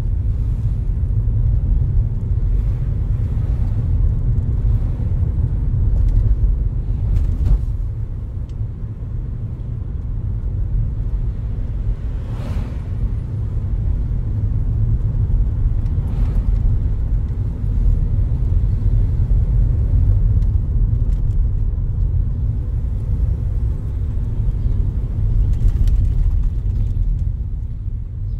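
Car driving at low speed, its steady low road and engine rumble heard from inside the cabin.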